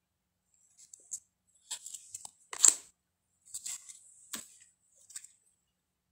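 Tarot cards being handled and flipped one after another: a series of soft swishes and light snaps as the cards slide off one another, the loudest about two and a half seconds in.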